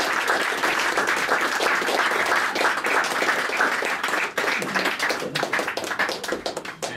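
Audience applauding at the end of a poem: dense clapping that thins to scattered claps about four seconds in and dies down near the end.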